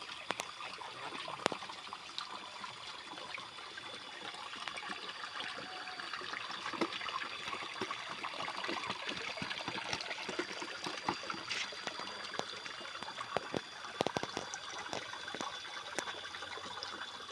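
Steady trickle of running water, with scattered small clicks and knocks.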